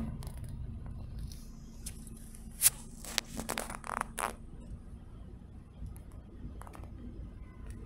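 Low, steady, muffled rumble of a freight train rolling through a grade crossing, heard from inside a car, with a run of irregular clicks and scrapes about three to four seconds in and two faint clicks later.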